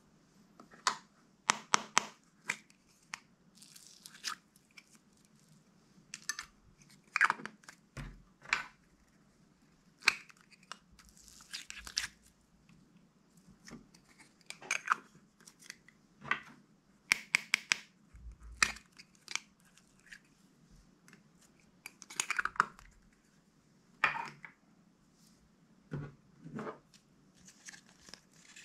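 Small plastic slime containers, lids and trays being handled and opened: irregular sharp clicks, taps and crinkly plastic rustles, a few every couple of seconds.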